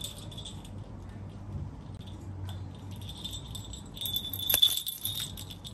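A small jingle bell inside a hollow perforated plastic toy ball, jingling and rattling as a baby monkey handles and rolls it. It gets louder about four seconds in, with a sharp knock shortly after.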